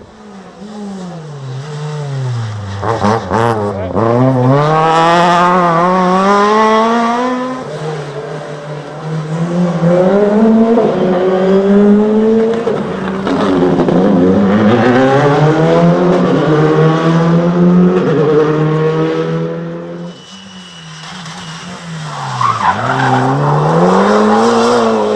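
Rally car engines, several cars in turn, revving hard. Each one drops in pitch under braking into a corner, then climbs steeply through the gears with quick drops at each upshift as it pulls away at full throttle.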